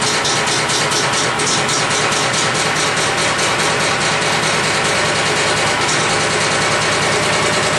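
Kubota garden tractor engine running cold, just started on a battery charger's engine-start boost because its battery is weak. It runs with a regular pulsing of about five beats a second that evens out about six seconds in.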